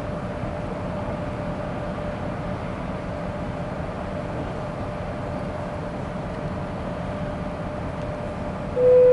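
Steady hum and rumble of a train standing or moving slowly close by. Just before the end a loud horn starts, one steady note.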